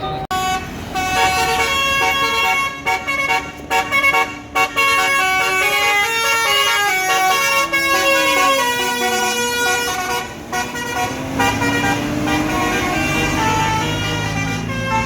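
Bus basuri 'telolet' musical air horn playing a quick melody of short stepped notes, with a lower tone gliding down and back up in the second half.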